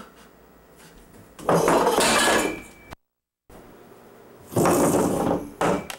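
Chair legs scraping across a tile floor: two loud harsh scrapes of about a second each, a shorter one near the end, and a brief dropout to dead silence between them.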